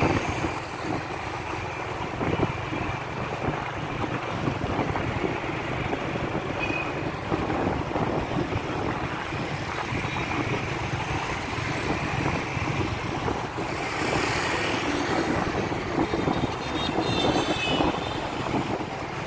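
Steady engine and road noise of street traffic heard from a vehicle riding among motorbikes and cars, with a louder swell about three quarters of the way through as traffic passes.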